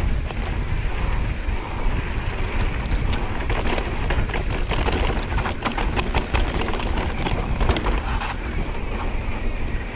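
Wind buffeting the camera microphone and knobby tyres rolling over a dry dirt singletrack on a fast mountain bike descent, with a rapid clatter of chain and bike rattles over bumps that is thickest in the middle of the stretch.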